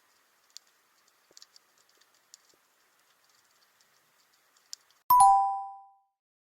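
Faint scattered clicking and crackle over a light hiss, as heard underwater. About five seconds in comes one sudden loud strike that rings with a clear two-note tone and fades within a second.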